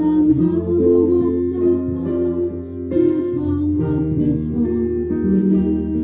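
Band playing an instrumental passage with no words: sustained chords over a steady bass line, the chords changing every second or so.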